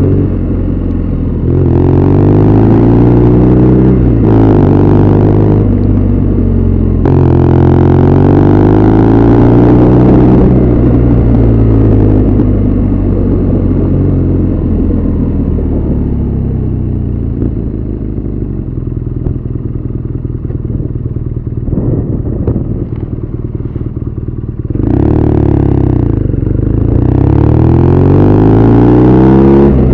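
BMW R nineT Scrambler's boxer twin pulling through the gears, its pitch rising and dropping sharply at each upshift. It then falls away for a long stretch as the bike slows, with a few light knocks, and pulls hard again near the end with another shift.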